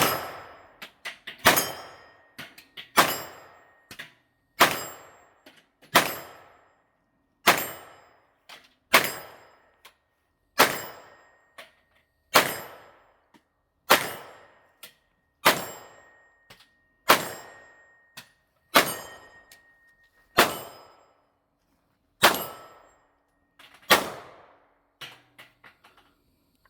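PSA AR-V9 9mm carbine fired in steady semi-automatic shots, about sixteen in all, roughly one every one and a half seconds, each shot ringing out in a short decaying tail.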